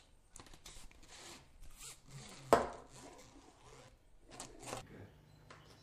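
Handling noise as a broomstick and a detached plastic vacuum-cleaner hose are worked after pushing a blockage out: soft scraping and rubbing, with one sharp knock about two and a half seconds in.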